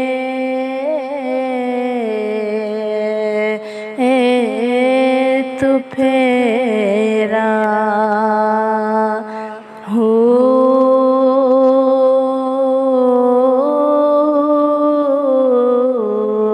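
Female voice singing long, drawn-out notes of a devotional Sufi kalam over a steady drone. The melody wavers and slides between held pitches, with short breaks between phrases.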